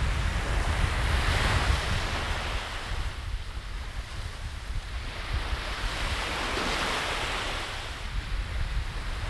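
Sea waves washing in, swelling up twice (about a second and a half in and again near seven seconds), with wind buffeting the microphone as a steady low rumble.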